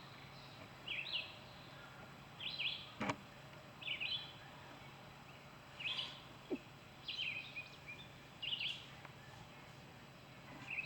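A bird calling over and over, short chirps repeated about every second or so, with a single sharp click about three seconds in.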